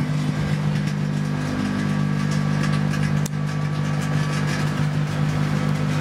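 Microwave oven running with a steady deep hum, while a plasma flame burns on an H4 halogen bulb inside it, giving faint crackling ticks and one sharp click about three seconds in.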